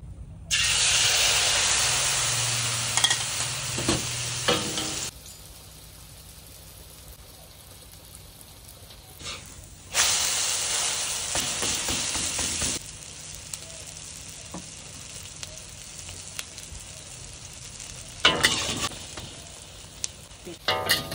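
Cha-om and egg batter hitting hot oil in a wok and frying: a loud sizzle that drops to a steadier, quieter frying hiss, then flares loud again for a couple of seconds as the spatula presses the omelette. A few short scrapes of the metal spatula against the wok near the end.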